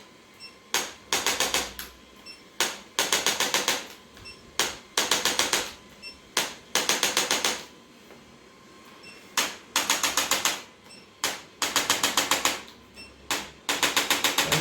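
Handheld chiropractic adjusting instrument firing bursts of rapid mechanical clicks: about seven bursts of six to eight quick clicks each, most led by a single click, repeating every couple of seconds.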